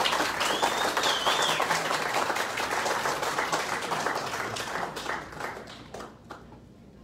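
Audience applauding, many hands clapping, with a high, rising-and-falling cheer from one person about a second in; the clapping dies away near the end.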